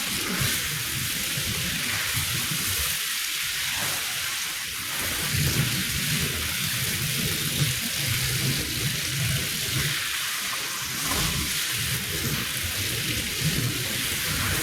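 Steady rushing spray of water hitting a soaked rug, with an uneven low rumble underneath.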